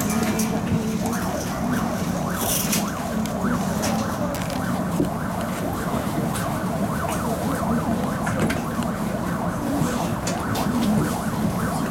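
Steady low hum of a Tatra T3 tram's on-board equipment, with many short rising-and-falling chirps and scattered light clicks over it.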